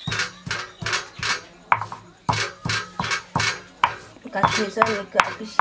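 Stone muller rubbed back and forth on a flat stone grinding slab (Nepali silauto and lohoro), crushing ingredients to a paste. It makes a rhythmic rasping scrape at about two to three strokes a second.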